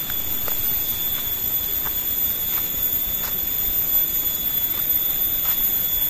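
Steady high-pitched insect drone, holding one unchanging pitch, with faint short chirps here and there.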